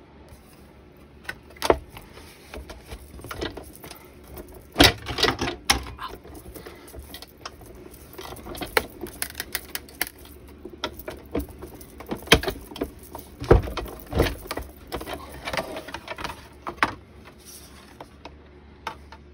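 Sizzix Big Shot die-cutting machine being cranked, the acrylic cutting plates with a metal die and card passing through its rollers, giving a run of irregular clicks and knocks.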